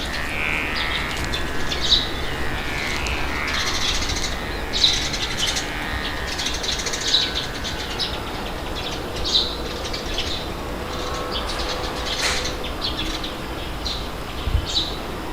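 Outdoor ambience: small birds chirping in short calls, one every second or so, over a steady rush of wind.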